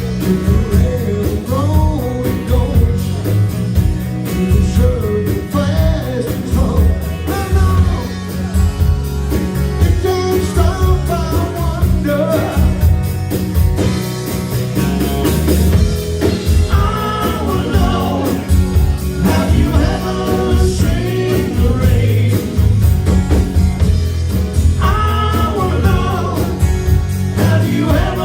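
Live rock band playing with a male lead singer and backing vocals over electric guitar, bass and drums at a steady beat.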